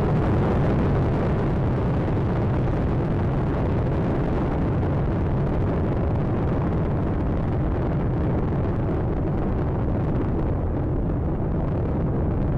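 Steady, dense rumble of Space Shuttle Atlantis climbing after liftoff: its main engines and solid rocket boosters burning during ascent. The upper part of the sound thins out near the end as the shuttle draws away.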